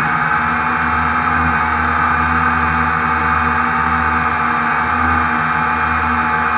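Quadcopter's electric motors and propellers droning steadily, heard loud and close from the camera on board.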